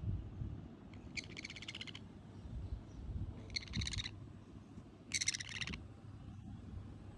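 Pet parrot giving three short, harsh, buzzy calls about a second and a half apart, over a steady low rumble.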